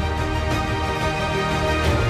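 Closing theme music of a TV programme: held chords over a strong deep bass, with a sharp hit near the end.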